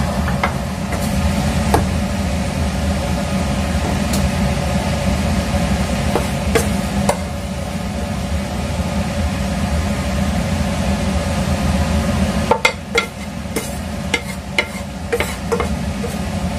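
Wooden spatula scraping and knocking in a frying pan of fried flat rice noodles over a steady hum. The hum drops off about three-quarters of the way through, leaving sharper clicks and taps.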